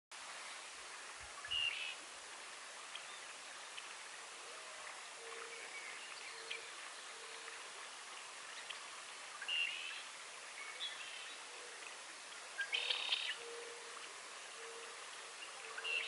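Evening chorus of birds and frogs: a steady background chorus with a few louder bird calls standing out every few seconds, and from about a third of the way in a low note repeated over and over at an even pace.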